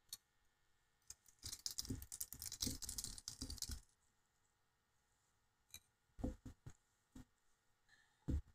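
Faint handling sounds of a small FPV drone being taken apart by hand: a couple of seconds of rustling and clicking of its plastic and carbon parts, then a few single soft knocks near the end.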